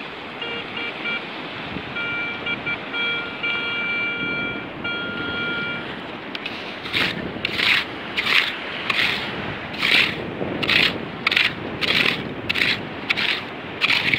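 Garrett Ace 150 metal detector sounding its steady electronic target tone, which breaks on and off for about six seconds as the coil is held over the dug hole. Then a small hand scoop scrapes and digs into wet sand and shells in regular strokes, just under two a second.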